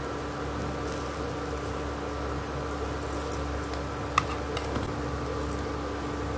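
Steady background hum and hiss, with a few light clicks and one sharper click about four seconds in, from spice containers and a spoon tapping the steel jar as spices are spooned in.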